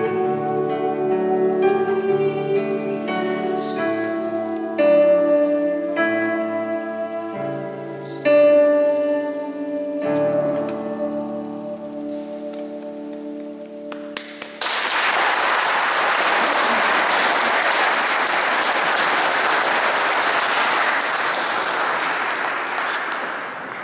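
A boy singing to a digital piano accompaniment, the song ending on a long held note. About fifteen seconds in, applause breaks out suddenly, holds steady, and fades away at the end.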